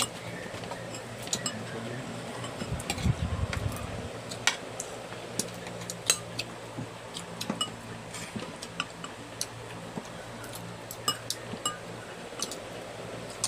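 Metal spoons and a fork clinking and scraping against a ceramic soup bowl and plate during eating, in many short, irregular clicks over a steady low hum.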